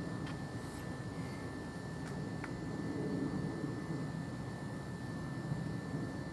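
Low, steady rumble of distant rolling thunder that swells a little about three seconds in.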